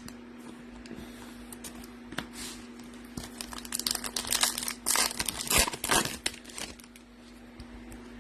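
Foil wrapper of a Topps Chrome trading card pack crinkling as it is torn open, in a run of sharp crackles from about three to seven seconds in.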